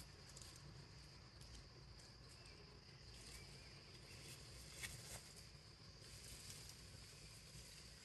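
Faint forest ambience: insects droning steadily at one high pitch, with scattered soft ticks and rustles and one sharper click about five seconds in.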